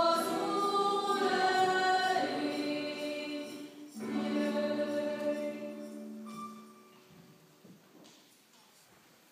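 Small mixed choir of young voices singing unaccompanied: a phrase, a short break about four seconds in, then a long held final chord that dies away about seven seconds in, leaving only faint rustling.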